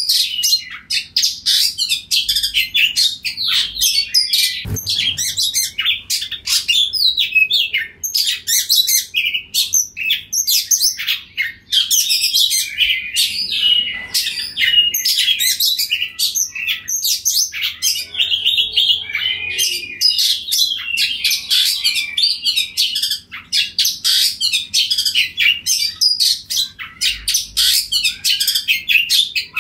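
Male oriental magpie-robin singing a loud, continuous song of rapid, varied whistles and chirps, broken by a few brief pauses.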